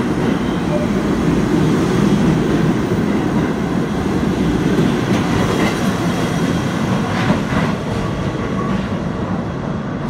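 R68A subway train pulling out of the station and heading into the tunnel: the cars' wheels on the rails run loud and steady, easing off slightly near the end as the train draws away.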